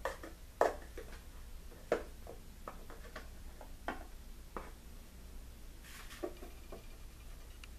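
Seasoning shaker shaken over a mixing bowl: a run of light, irregular clicks and taps, a few a second, as seasoning salt is sprinkled in.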